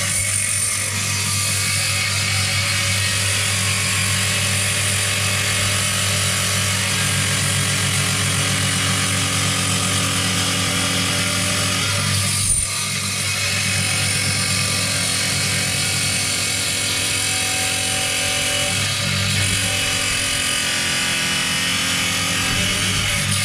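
Bench rock saw's motor running steadily while its blade grinds through a stone nodule, a constant hum under a dense gritty hiss. One brief sharp click about halfway through.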